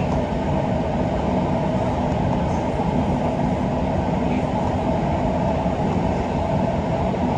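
Kita-Osaka Kyuko 9000 series electric train running through a tunnel, heard from inside the driver's cab: a steady, even rumble of wheels on rail with a faint steady hum in it.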